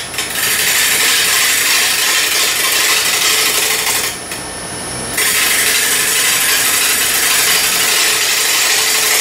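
Hand-held turning tool cutting a spinning Bradford pear bowl blank on a wood lathe: a steady hiss of wood being shaved away, broken off for about a second about four seconds in as the tool leaves the wood, then resuming, with the lathe's motor hum underneath.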